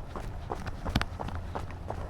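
A runner's footsteps at a steady pace, about three footfalls a second, with one sharper, louder footfall about halfway through.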